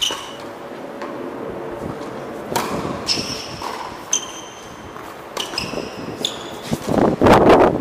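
Tennis rally on an indoor hard court: sharp racket strikes and ball bounces echoing in the hall, several followed by short high squeaks. Near the end comes a louder, rough burst lasting under a second.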